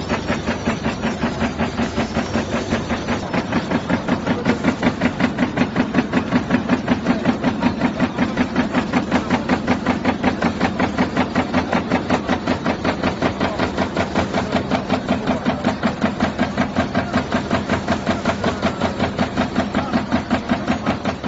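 High-speed die-cutting punching machine with an inline printer running at production speed, its press punching paper-cup fans from a printed paper web in a fast, even rhythm of about five strokes a second.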